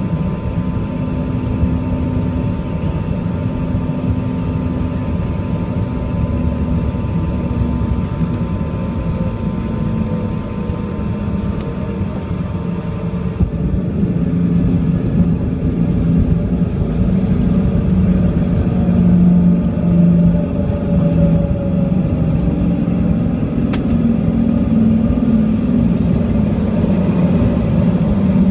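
Cabin noise of a CRJ-200 regional jet landing: the hum of its rear-mounted turbofans and rushing air on final approach, with a steady whine that stops about halfway through. After a small thump near that point, a louder low rumble as the aircraft rolls down the runway after touchdown.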